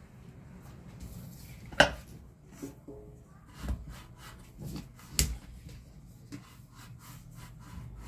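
A hand wiping around the inside of a stainless steel industrial blender jar: rubbing against the metal, with a few sharp knocks, the loudest about two seconds in and another about five seconds in.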